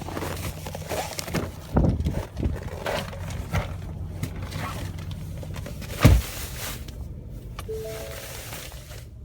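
A 2017 Ford Raptor's 3.5-litre twin-turbo EcoBoost V6 idling after a cold start in deep cold, with a slight engine knock that the owner ties to long-running cam trouble. A few sharp thumps and crunches sound over it, the loudest about six seconds in, and a short plucked-sounding music tune comes in near the end.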